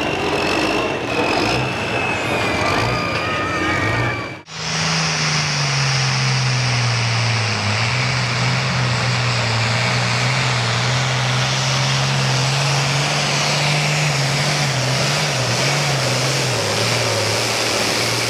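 Turbocharged International 66-series Super Pro farm pulling tractor engine running steadily at the sled, its pitch shifting slightly now and then. Before it, for the first four seconds, a different background with thin wavering tones ends at an abrupt cut.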